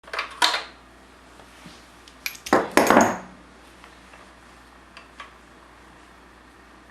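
Metal hand tools clinking and clattering in two short bursts, the second louder, then a few faint ticks.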